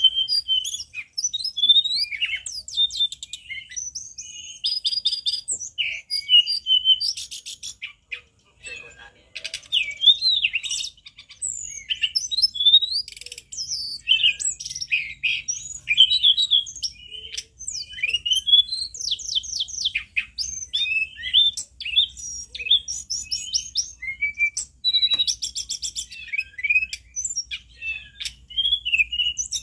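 A caged tledekan gunung, a blue flycatcher, singing loudly and without letup. Its song is a rapid, varied run of high whistled notes, slurred phrases and fast trills, with a brief pause about eight seconds in.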